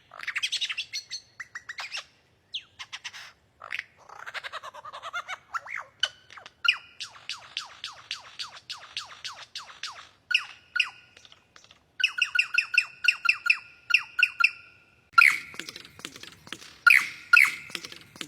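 Lyrebird singing a varied mimicry sequence: quick runs of sharp clicks, sweeping chirps, squawks and a held whistled note, changing phrase every few seconds.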